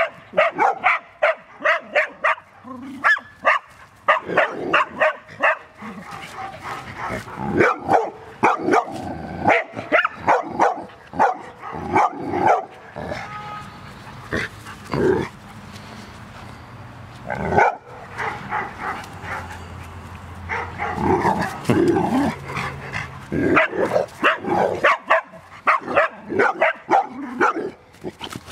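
Puppies barking over and over in quick runs of sharp barks, with a short lull in the middle, as they harass a small snake.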